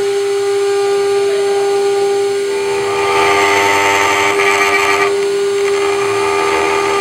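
Small CNC router spindle whining at a steady high pitch while its engraving bit cuts into aluminium. A louder, rougher cutting noise joins the whine about two and a half seconds in.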